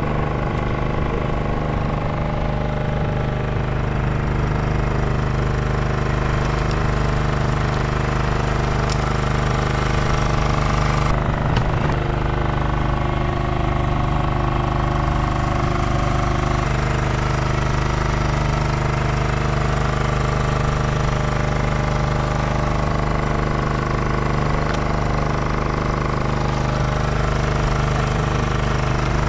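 An engine idling steadily, its even note unchanged throughout.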